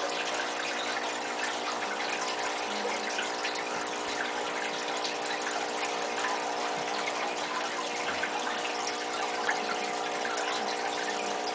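Aquarium filter and air pump running: a steady trickling and bubbling of water with an even electric hum.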